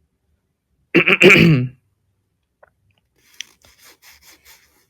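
A man clears his throat once, about a second in, in two quick parts; it is the nagging cough that keeps bothering him. Near the end come a few faint short sounds.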